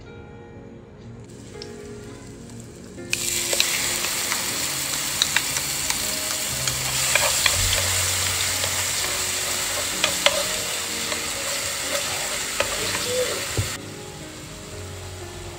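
Hot oil sizzling in a frying pan, with scattered pops and spatters. It starts suddenly about three seconds in and cuts off abruptly near the end. Soft background music runs underneath.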